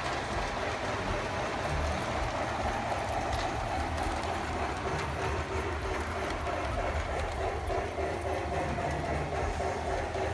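Several LGB G-scale model trains running at once: a steady whine of electric motors and gears over the rumble of wheels on brass track. One train passes close about halfway through.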